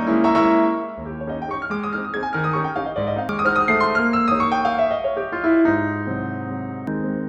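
Background piano music: a gentle melody of single notes and chords, with a run of rising then falling notes in the middle.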